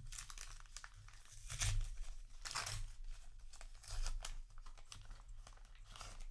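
Trading card booster pack wrapper being torn and crinkled, in several crackling bursts.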